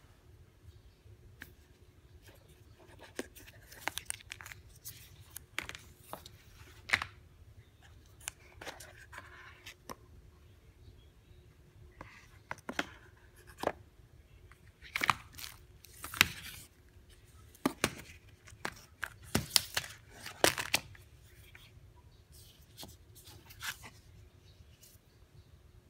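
Cardboard and paper packaging of an Apple Watch box being handled and unpacked: irregular clicks, scrapes, rustles and a papery tearing sound as trays and inserts are lifted out and moved, busiest from the middle on.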